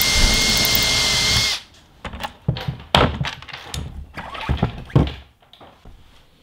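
Cordless drill running steadily with a high motor whine as it bores a quarter-inch pilot hole through the metal roller-ski bracket into the snowmobile ski, stopping about a second and a half in. Then a few knocks and clicks as the parts are handled.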